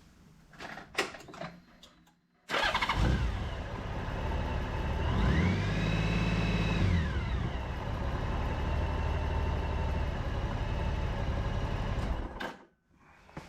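Honda GL1800 Gold Wing's flat-six engine started, run briefly at idle with one short rev about halfway, then switched off near the end. This is the fresh-oil run before the level is rechecked. A few small clicks come just before it starts.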